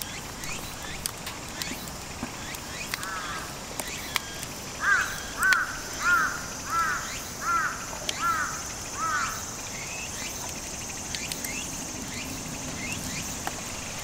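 A bird calls seven times in a quick, even series about two-thirds of a second apart, the loudest sound here. A steady high insect drone comes in around the middle, and there are a few faint clinks of a fork in a steel sierra cup.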